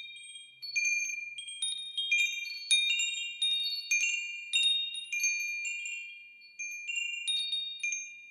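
Wind chimes ringing, struck irregularly about once or twice a second. The high, clear notes overlap and fade away slowly, with a brief lull a little past the middle.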